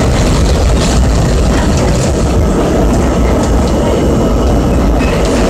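R32 subway car running through a tunnel, heard from inside the car: a loud, steady rumble of the train in motion, with a few sharp clicks along the way.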